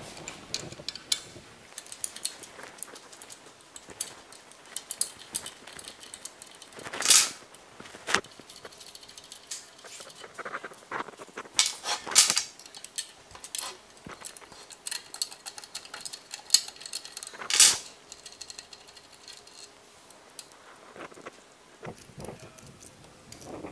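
Steel Allen key and 13 mm wrench clicking and clinking on the nuts and screws of a pump case as they are undone, with small metal parts being handled. Three louder metallic knocks stand out among the ticks.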